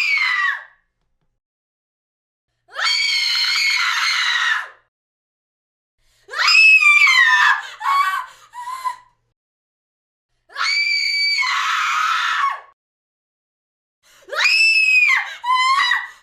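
A woman screaming: a string of separate high-pitched screams, each about two seconds long, with dead silence between them. One near the middle breaks off into a few shorter cries.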